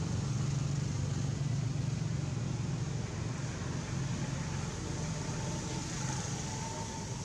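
A steady low engine rumble, like a vehicle running nearby, easing off slightly partway through.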